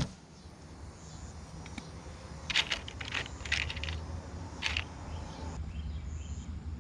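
Small crimp-type electrical connectors clicking and rattling as they are handled, in two short clusters a couple of seconds apart, over a low steady hum.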